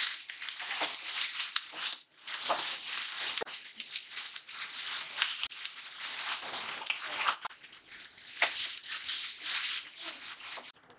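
Diced vegetables sizzling in butter in a nonstick frying pan, stirred and scraped around with a wooden spatula, a steady crackling hiss with scraping strokes through it. It breaks off briefly about two seconds in.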